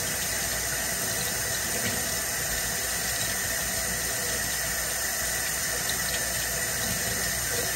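Kitchen faucet running steadily, the stream splashing over a fish held in the hands as it is rinsed clean.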